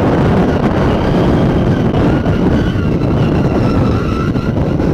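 Heavy wind buffeting on the microphone, loud and steady, over the turbocharged 1JZ-GTE straight-six of a Holden VB Commodore running as the car edges forward.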